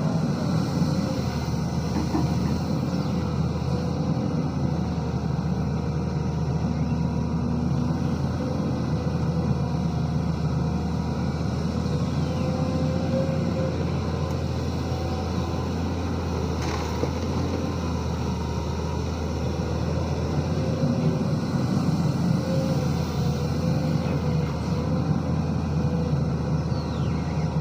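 Diesel engine of a Sany SY215C hydraulic excavator running steadily at working speed, its pitch rising and falling a little as the machine digs and loads.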